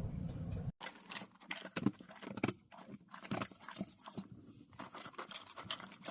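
A low rumble cuts off suddenly under a second in, then a dog makes a run of sharp, irregular clicks and taps, several a second.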